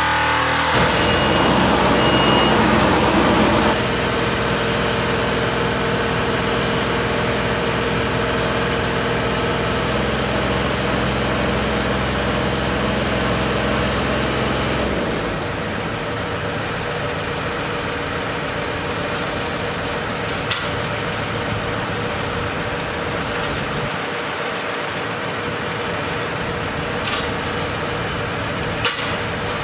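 RTG sheet piling rig running with a steady mechanical drone made of several held tones, louder for the first few seconds and thinner in its deepest notes from about halfway. A few sharp clicks stand out near the end.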